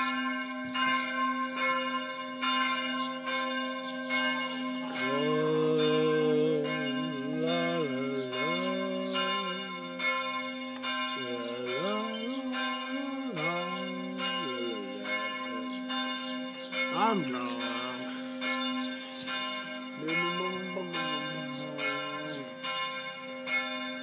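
Church tower bells pealing, several bells struck over and over, about two strokes a second, over a steady ringing hum that hangs between the strokes.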